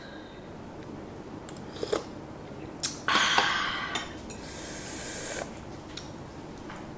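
Chopsticks and spoon clicking against a ceramic bowl of noodle soup a few times, followed by a rushing noise lasting about two seconds past the middle.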